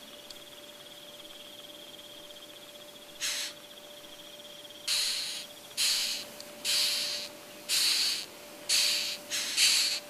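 Beetle sound: a steady high, finely pulsing trill that stops a little before halfway, then a run of about eight short hissing rasps, each about half a second, coming roughly once a second and growing closer together near the end.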